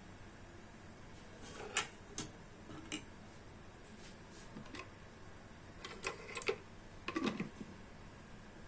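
Scattered light clicks and clinks of kitchen utensils against cookware: a few single ones in the first half, then a quick cluster of knocks from about six to seven and a half seconds in.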